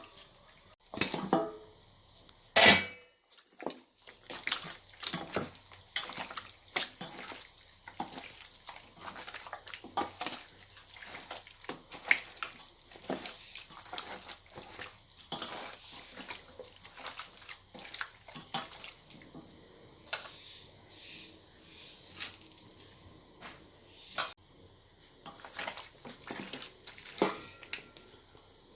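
Raw chicken pieces being mixed by hand into a wet marinade of coarse-ground chilli, ginger, garlic, fennel and curd in a bowl: irregular wet squelches and slaps, with one sharp knock about two and a half seconds in.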